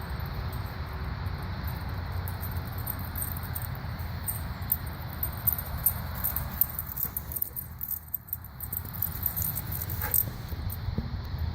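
Dogs playing together, with light scuffling and scattered short clicks over a steady low rumble.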